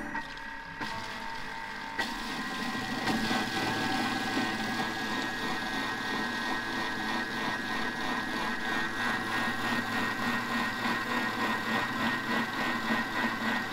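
Thermomix TM5 running at speed 4 with the butterfly whisk beating aquafaba in the open mixing bowl, a steady motor whine with a regular pulsing churn. It gets louder about two seconds in. The aquafaba is being whipped towards a foam.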